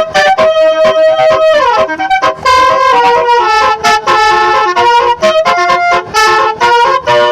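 Telolet multi-tone musical horn (Bajaj Basuri) playing a fast tune, its loud trumpet-like notes stepping quickly from one pitch to the next.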